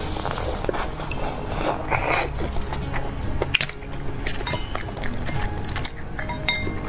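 Close-up eating sounds, short wet smacks and crunchy bites of chewing, over steady background music.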